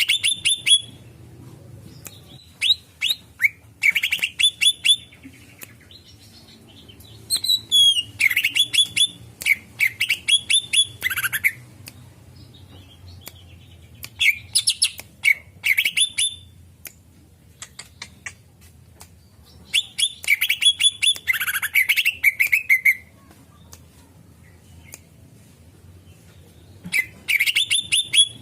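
Cucak ijo (greater green leafbird) singing: bursts of rapid, sharp chirps and short gliding whistles, about a second or two each, separated by pauses of a few seconds.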